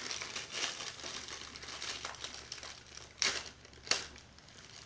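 Crinkling and rustling of the kite's plastic wrapping as it is handled and pulled open, with two sharper crackles about three and four seconds in.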